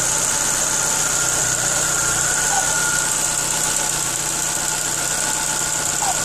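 Chevrolet Agile 1.4 four-cylinder engine running at a steady idle with a steady high-pitched whine and a faint short chirp about every three seconds: the strange noise the owner is recording, cause not given.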